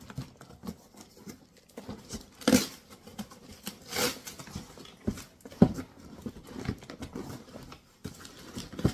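Bike repair stand parts being pulled out of tightly packed cardboard packaging: irregular rustling and scraping with a few sharper knocks, the loudest a little past halfway.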